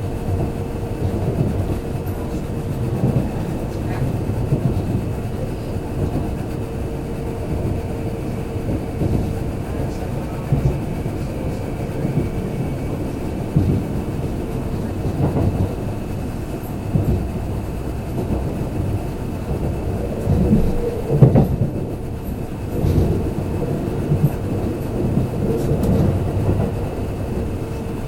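Kintetsu limited express train running at speed, heard from inside the car: a steady rumble of wheels on rail with irregular rail-joint knocks, the loudest about 21 seconds in, and a steady tone under the running noise.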